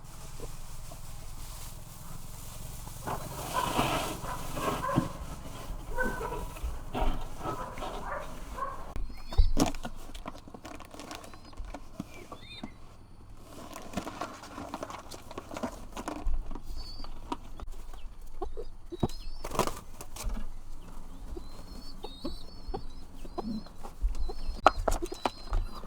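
Chickens clucking, with small birds chirping high and short from about ten seconds in, and scattered knocks.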